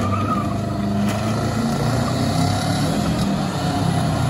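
Road traffic: car engines running and moving through the intersection, a steady low rumble.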